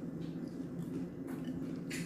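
Faint chewing and mouth clicks over a steady low background hum.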